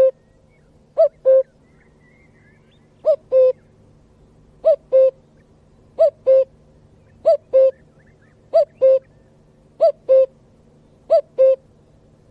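Male common cuckoo calling its two-note "cu-ckoo", the second note lower than the first. The call repeats at an even pace about every 1.3 seconds, eight or nine times.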